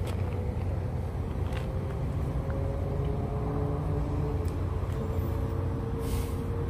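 Steady low rumble of motor vehicles, with a faint steady hum over it and a short hiss about six seconds in.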